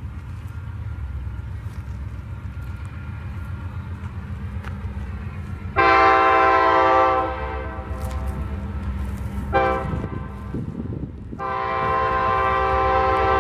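Third-generation Nathan K5LA five-chime air horn on a Union Pacific GE C44ACM diesel locomotive, sounded for a grade crossing: a long blast about six seconds in, a short toot near ten seconds, then another long blast starting a little after eleven seconds. The locomotive's diesel engine runs low and steady underneath.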